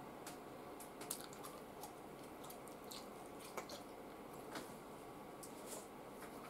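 A man chewing food: faint, scattered wet mouth clicks and smacks, with a few louder ones, over a steady low room hum.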